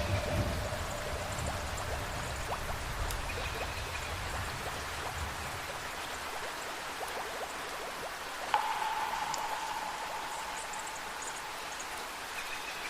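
Steady heavy rain, with a low rumble of thunder dying away over the first few seconds. A bell rings once about eight and a half seconds in and holds a single clear tone for several seconds, and the tail of an earlier bell note fades out at the start.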